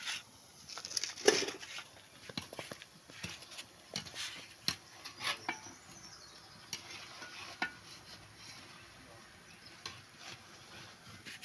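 Akara (bean fritters) frying in hot oil: a steady sizzle under irregular clinks and scrapes of a utensil against the pan or bowl, the loudest knock about a second and a half in.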